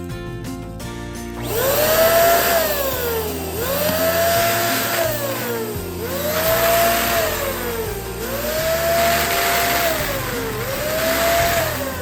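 Electric balloon pump whining in repeated bursts, about one every two seconds: each time its pitch climbs quickly, holds, then sinks. Background music plays underneath.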